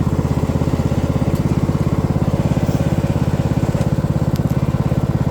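Riding lawn mower's small engine running steadily, with a fast, even putter.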